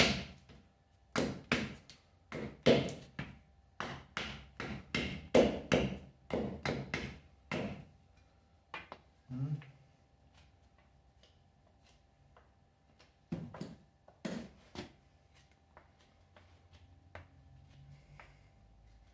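Bushcraft knife chopping into a wooden stick held on a log stump, cutting a point on its end: a run of sharp strikes about two a second, then a few single strikes and faint taps in the second half.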